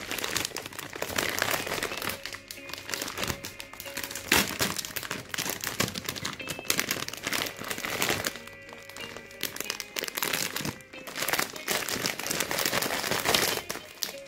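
Clear plastic bag of Tofiland wrapped hard candies crinkling as hands pull it open, rummage through the cellophane-wrapped sweets and tip the bag. The crinkling comes in several louder spells, over soft background music.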